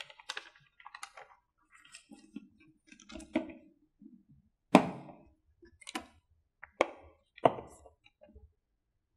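Paper rustling as a large sheet is handled, then about four sharp clicks as magnetic strips snap against a whiteboard to hold a card in place.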